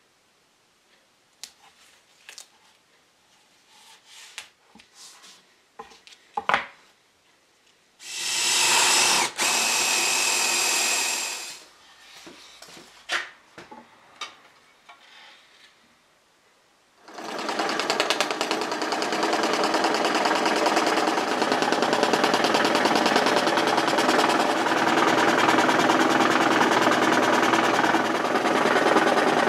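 A few scattered knocks and clicks of handling, then a loud hiss lasting about three seconds. Past the halfway mark a power tool starts and runs steadily and loudly with a fast, even rattle.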